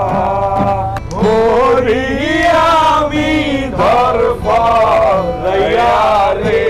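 A group of men singing a Bengali folk song together, with held, bending notes, to an acoustic guitar.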